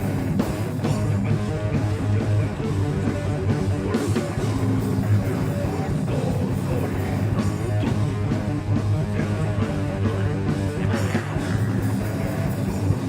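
Heavy metal band playing live: distorted electric guitars and bass over a drum kit with a rapid, steady kick-drum pattern.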